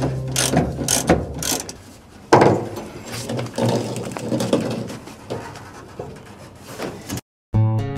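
Ratchet wrench clicking in quick even strokes as it turns out the body-to-frame bolts of a VW Beetle. After a sudden knock, the steel body shell is lifted off the frame with irregular scraping and knocking. Near the end the sound cuts out briefly and acoustic guitar music starts.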